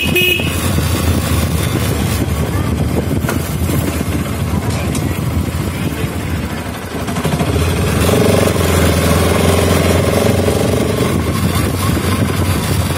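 Bajaj Pulsar RS200's single-cylinder engine running on the move, heard from the rider's seat. It eases off about seven seconds in, then pulls again with a slightly rising note as the bike picks up speed.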